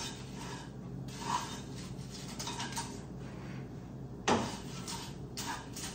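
A wooden spatula stirs and scrapes dry, crisp food around a non-stick kadai on a gas stove: a run of scrapes and rattles against the pan, the loudest a little past four seconds in, over a faint steady low hum.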